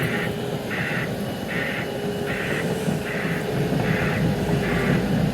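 A warning beeper sounding at a steady rate, about once every 0.8 seconds, over the low rumble of heavy machinery running.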